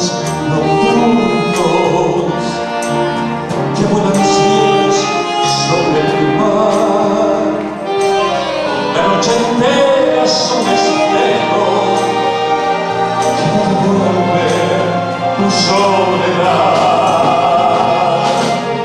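Band orchestra playing a slow song, with a male singer carrying the melody and vibrato on long held notes.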